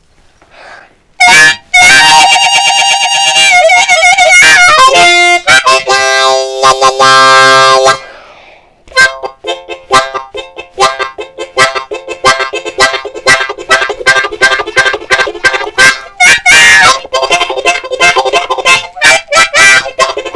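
Diatonic harmonica in the key of F imitating a train: long wailing chords with bent pitch like a train whistle, then rapid in-and-out breathed chords building a steady chugging rhythm, with another whistle chord near the end.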